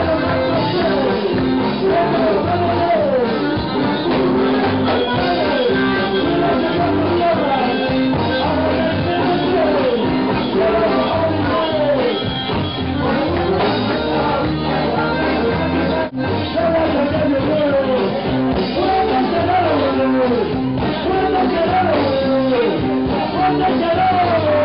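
Live band playing loud, fast psychobilly-jazz-punk with vocals, heard through a club crowd. The music cuts out for a split second about two-thirds of the way through.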